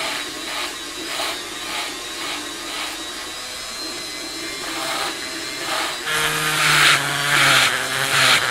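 Small rotary tool with a brass wire cup brush running steadily, scrubbing rust and crud from around the rivets of an old leather knife sheath. About six seconds in it gets louder and rougher, in uneven pulses, as the brush bears on the work.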